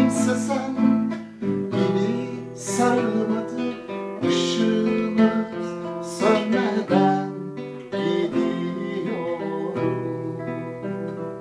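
Acoustic guitar strummed and picked, chords ringing between strokes, growing softer toward the end as the folk song closes.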